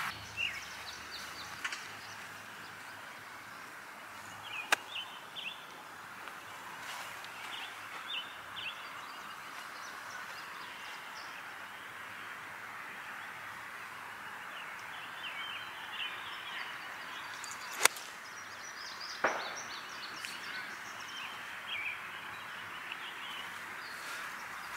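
Outdoor ambience: a steady hiss with scattered short, high bird chirps. A sharp crack about 18 seconds in is the loudest sound, with a fainter click near 5 seconds and another impact just after the crack.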